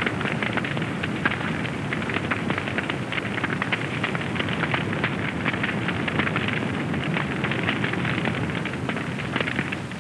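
A large fire crackling: a steady rush of noise thick with many small crackles.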